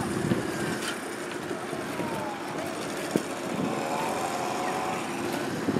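A motorboat engine running steadily at one even pitch, with wind and water noise.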